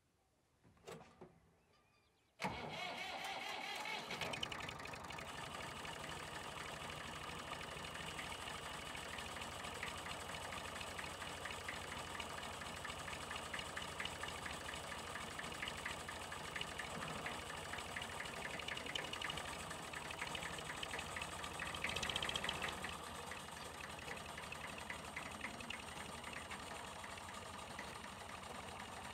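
Excavator's diesel engine starting about two seconds in, with a brief rising whine as it catches, then running steadily, briefly louder a little past two-thirds of the way through.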